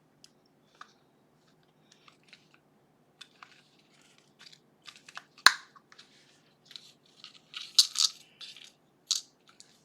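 Small metal clicks and clinks from handling a lock cylinder and its shim and plug-follower tools while shimming it. There is one sharp click about five and a half seconds in and a busier run of clicks near the end.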